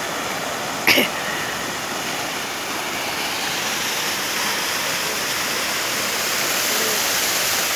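Small waterfall rushing steadily, with one brief sharp sound about a second in.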